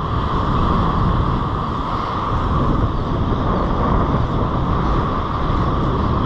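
Surf washing up a beach and wind buffeting the microphone: a loud, steady rushing noise with a deep rumble.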